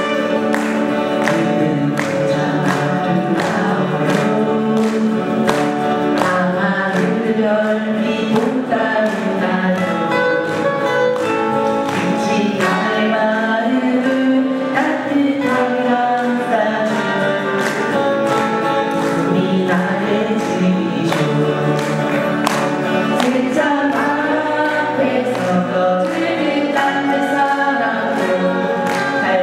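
Acoustic guitars strumming a steady rhythm under women's voices singing together, a live song performance.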